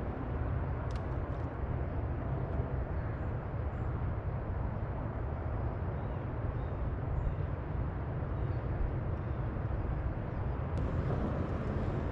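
Steady low rumble with a light hiss from a bass boat's electric trolling motor running.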